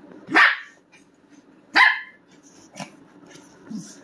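Small dog giving two short, sharp barks about a second and a half apart while play-fighting with a person's hand, with a couple of softer sounds after them.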